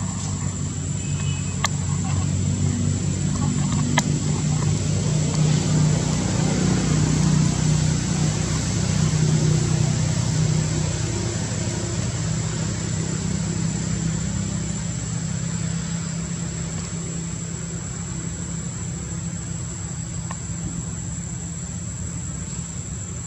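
A motor vehicle's engine running in the background, growing louder over the first ten seconds or so and then slowly fading away, over a steady high-pitched insect drone.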